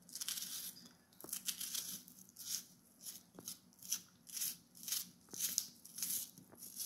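Kitchen knife slicing through a raw onion held in the hand, a quick even rhythm of short crisp cuts, a little over two a second, as the onion is chopped finely.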